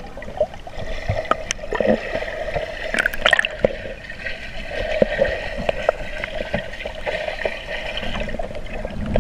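Swimming-pool water heard underwater through a submerged camera: muffled churning and bubbling as swimmers move, with scattered sharp clicks and knocks.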